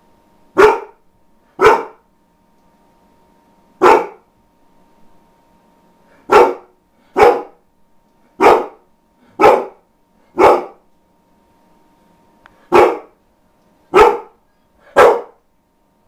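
An Akita barking: eleven single loud barks, most about a second apart, with longer pauses of two seconds or so between a few of them.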